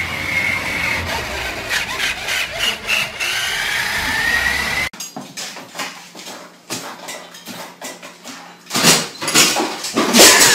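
Small electric motor of a toy remote-control truck running with a thin whine that rises in pitch near the end of the run. Then a metal baby gate rattles with scattered knocks and comes down with a loud clatter near the end.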